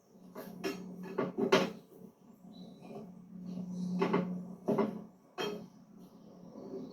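Tools and metal mower parts being handled: a string of sharp knocks and clanks, several close together in the first two seconds and more around four to five and a half seconds in, over a low steady hum.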